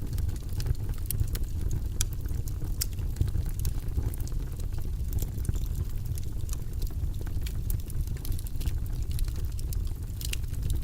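Log fire crackling: frequent irregular sharp pops and snaps over a steady low rumble of burning wood.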